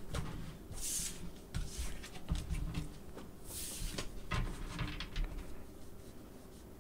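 A tarot deck being shuffled by hand over a wooden table: soft rustling of cards with two brief swishes, about a second in and again at about three and a half seconds, and scattered light taps.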